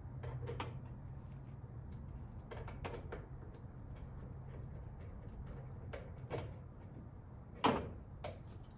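Scattered clicks and knocks from hand tools and parts being handled during an automotive spotlight installation, with one louder knock near the end, over a steady low hum.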